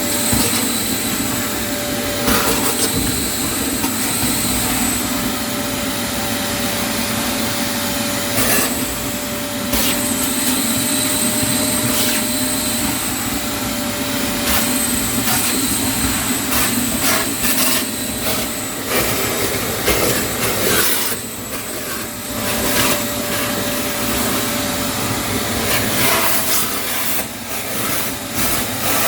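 A motor-driven machine running steadily with a constant whine, with frequent knocks and scraping over it.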